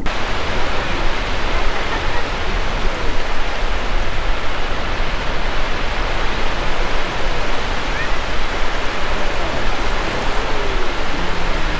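Steady rushing noise of wind and surf on an open beach, loud and unbroken.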